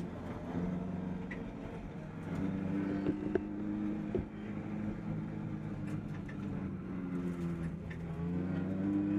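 Toyota AE86 Corolla coupe's engine running, heard from inside the cabin, its pitch holding steady and then climbing as the revs rise. A couple of sharp knocks cut in about three to four seconds in.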